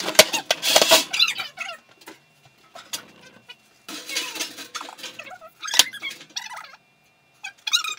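Welded steel cart frame and a steel sheet being handled on a metal workbench: irregular clanks and squeaking metal-on-metal scrapes, the loudest knocks near the start and about six seconds in.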